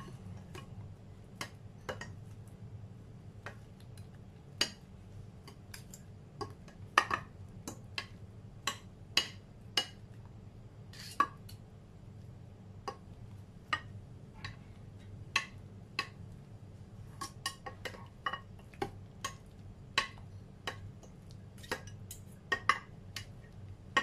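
A fork clicking and scraping against a glass baking dish while cutting a soft omelette into small pieces: irregular sharp taps, some much louder than others, over a low steady hum.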